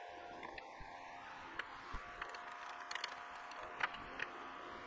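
Scattered light clicks and taps of hand tools against a steel welding table, over a faint steady hum.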